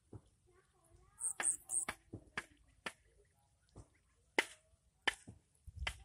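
Ducklings dabbling in the mud and shallow water of a flooded rice paddy: irregular sharp smacks and clicks of their bills, about seven of them, with faint soft calls in the first two seconds.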